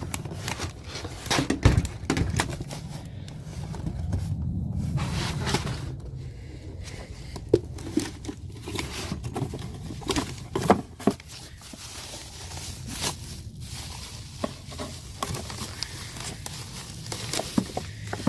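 Plastic packaging crinkling and rustling, with scattered clicks and knocks, as a new replacement starter motor is handled in its wrapping.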